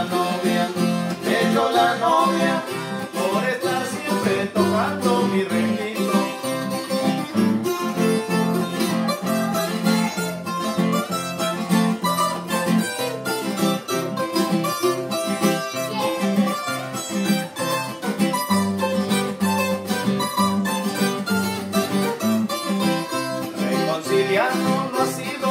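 Instrumental break of a Colombian duet: a small steel-strung Colombian requinto picks a fast melody over a nylon-string acoustic guitar's rhythmic accompaniment.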